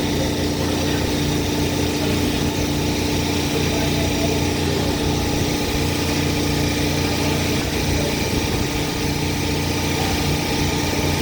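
Engine running steadily at an even speed, a constant hum with no change in pitch or level.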